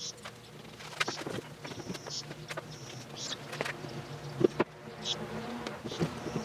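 Scattered clicks and knocks of tools and parts being handled during workshop assembly, with a few brief high-pitched chirps over a faint low hum.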